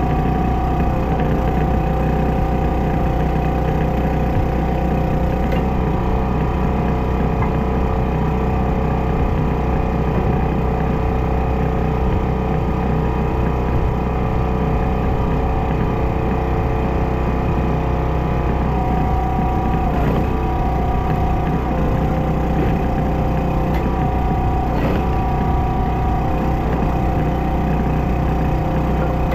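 Small gas engine of a hydraulic log splitter running steadily while logs are split. Its pitch dips briefly twice in the second half.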